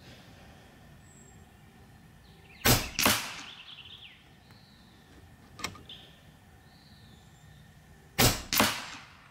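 A Hatsan Factor RC Sniper Long .22 PCP air rifle firing twice, a few seconds apart. Each shot is a sharp crack with a second crack about a third of a second after it. A light click falls between the two shots.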